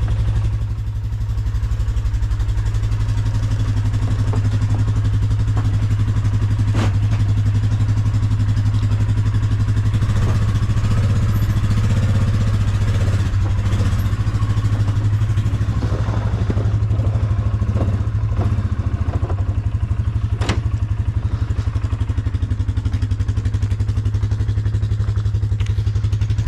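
Vehicle engine running steadily at low revs while the machine is moved, with a few sharp knocks or clanks about seven, ten and twenty seconds in.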